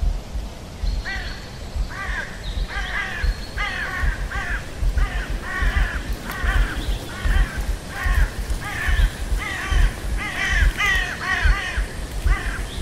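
Several crows cawing over and over, short harsh calls coming a few per second and at times overlapping, over a low, fluctuating rumble.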